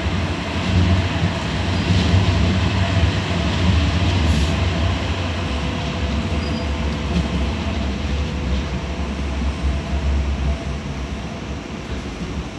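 A Sheffield Supertram Siemens-Duewag tram running along the line, heard from inside the passenger saloon: a steady low rumble of wheels and running gear with a faint steady whine above it, easing off slightly near the end.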